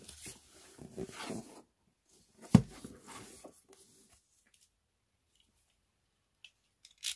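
Cardboard boxes being handled: cardboard scraping and rustling, with one sharp thump about two and a half seconds in, the loudest sound, then a few faint clicks near the end.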